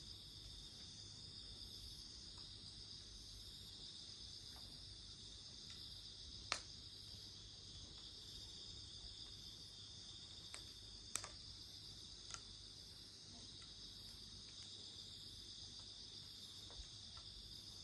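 Crickets chirring steadily, with a few sharp pops and crackles from the campfire's burning wood, the loudest about six seconds in.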